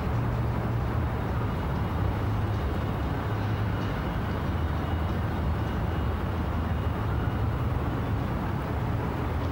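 Steady low engine drone with an even hum under a constant wash of noise.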